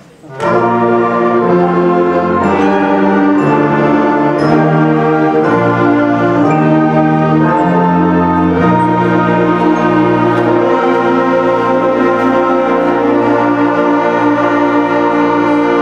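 Concert band of woodwinds and brass playing a slow chorale, starting about half a second in. Sustained chords move about once a second, then settle into one long-held chord for the second half.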